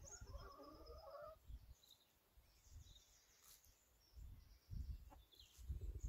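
Near silence with faint farmyard sounds. In the first second or so hens give a few soft gliding calls, then there is only faint high birdsong and an occasional low rumble.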